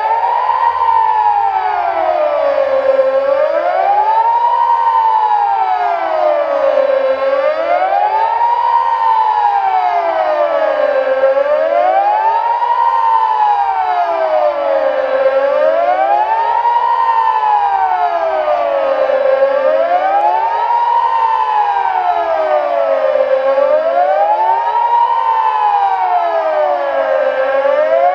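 Kockum Sonics Delta 6 civil-defence sirens sounding a loud, steady wail that glides smoothly up and down in pitch about once every four seconds, the warning signal of a siren test. One of the two Delta 6 units is pitched slightly higher than the other.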